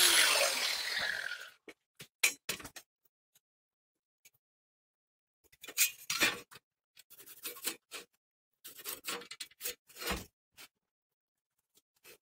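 An angle grinder winding down over the first second and a half, its whine falling in pitch as it fades. Then scattered short clicks, clinks and scrapes of a tape measure, steel square and metal parts being handled while marking out the steel frame.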